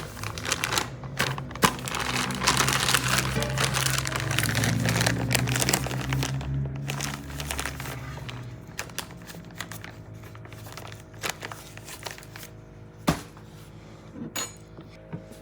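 Music playing with a crinkling rustle over it for the first half. Both stop about eight seconds in, leaving a few scattered clicks and knocks.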